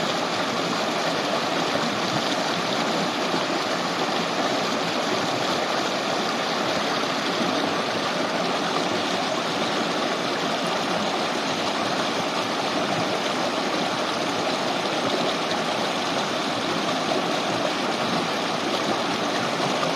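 Shallow river babbling over stones, a steady, even rush of running water.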